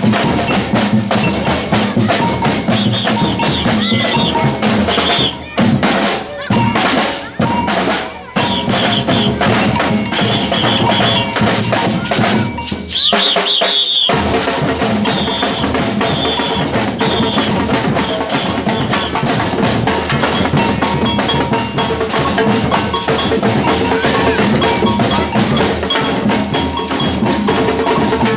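Batucada percussion ensemble playing a driving samba rhythm on bass drums, snare drums and cowbell. The drumming drops out for a moment a few times around the middle and picks straight back up.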